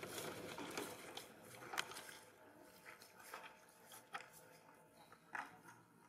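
Faint footsteps crunching through grass and dry soil: soft, irregular crunches a second or so apart over quiet field ambience.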